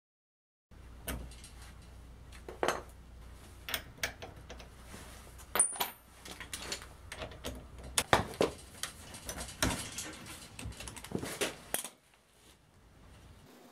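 Irregular metallic clinks and taps of hand tools on the ATV's rear axle castle nut as the cotter pin is worked out and a 22 mm socket is fitted over the nut, over a low steady hum, with one short high squeak about halfway. The clinking stops about twelve seconds in.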